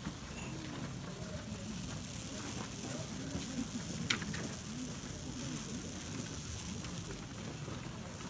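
A crowd of spectators murmuring, many indistinct voices overlapping, over a steady hiss. One short sharp click about four seconds in.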